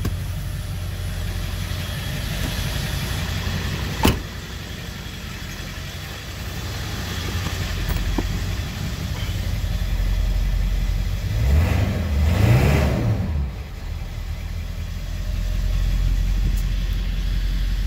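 Ford 7.3 Power Stroke turbo-diesel V8 idling, heard from inside the cab. There is a sharp knock about four seconds in, and the engine revs up briefly and settles back down around twelve seconds in.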